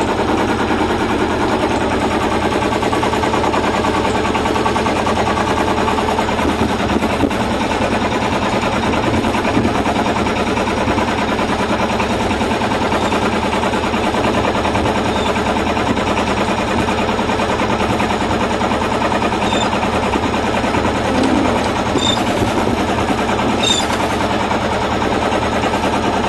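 A sailboat's auxiliary engine running steadily under the load of towing a second sailboat.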